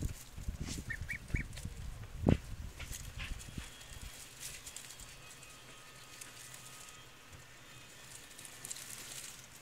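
Tomato plant leaves and stems rustling and crackling as a domestic goose pulls at them with its beak, feeding from the bush. A few low thumps and a louder knock come in the first few seconds, and three short high chirps come about a second in.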